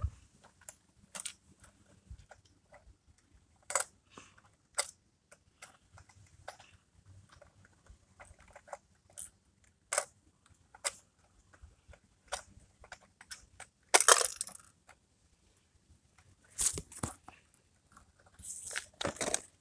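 Small clicks and scrapes of a First Gear diecast rear-loader garbage truck model being worked by hand at its rear hopper: scattered sharp clicks, a longer scrape about two-thirds of the way through, and a few more scrapes near the end.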